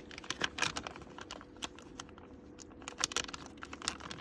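Irregular light clicks and taps of hands handling a small label printer and the label ticket it has just printed.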